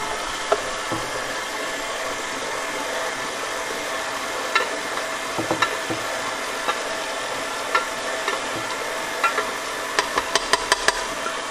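KitchenAid stand mixer motor running steadily, its beater turning through thick matzo ball batter, with scattered light clicks that come several in quick succession near the end.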